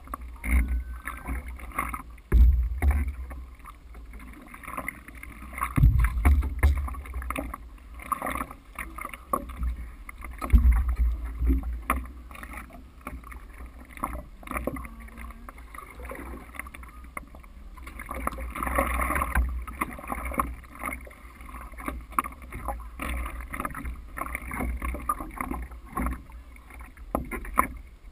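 Stand-up paddleboard being paddled: paddle strokes and water splashing and slapping close against the board, with a few heavier low thumps early on. The sound is picked up close to the water by a camera mounted on the board's deck.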